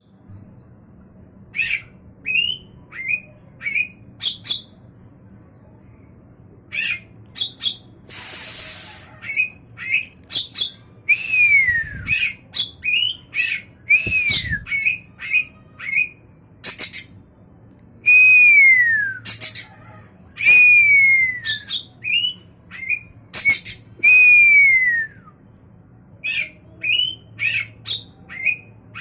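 Oriental magpie-robin (kacer) singing: a string of short sharp notes mixed with several long falling whistles, and a harsh rasping burst about eight seconds in.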